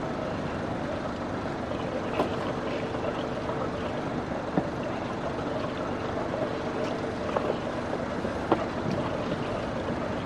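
Steady rushing noise of a sailboat in a river lock chamber, with a faint steady hum from about two seconds in until about seven, and a few sharp knocks.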